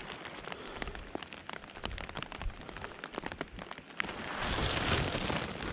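Rain falling steadily, with drops striking close to the microphone as many scattered sharp ticks; a louder hiss swells about four seconds in.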